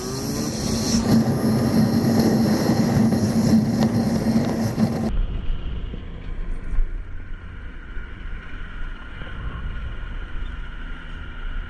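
Motorcycle running on the road, with a steady engine tone under loud wind rush over the microphone; about five seconds in the sound cuts abruptly to a quieter, lower engine rumble.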